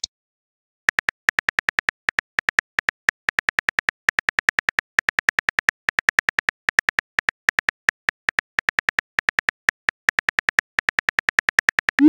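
Smartphone keyboard typing sound effect from a texting-story app: rapid, evenly spaced key-tap clicks, about six a second, starting about a second in.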